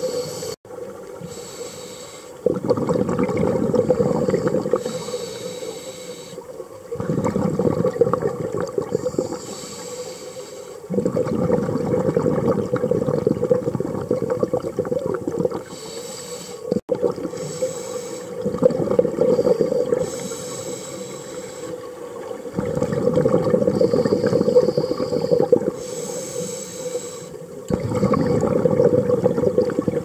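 Scuba diver breathing through a regulator underwater: a rumbling rush of exhaled bubbles every four to five seconds, with quieter stretches between breaths.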